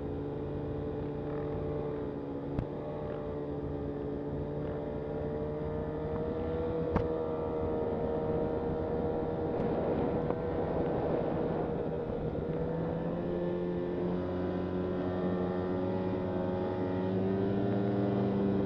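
Snowmobile engine running steadily under throttle, heard from the rider's seat, its note dropping lower about two-thirds through. Two sharp knocks come about three and seven seconds in, and a short rush of noise around ten seconds in.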